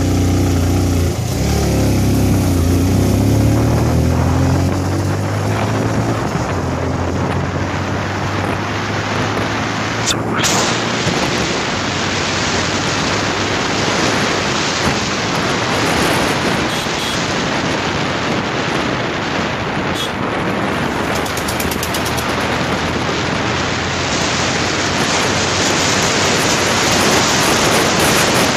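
A small two-wheeler's engine is heard for the first few seconds as it rides off. Then wind rushing over the microphone and road noise cover most of the engine as it rides along. A sharp click comes about ten seconds in and again around twenty.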